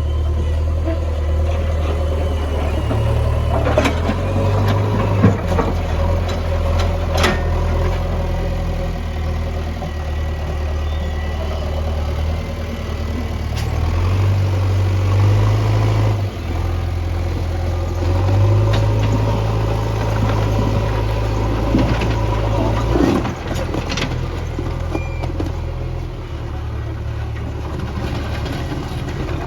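JCB backhoe loader's diesel engine running under changing load, its low drone rising and falling every few seconds as it works. A few sharp knocks cut through, most of them within the first seven seconds and one more past the middle.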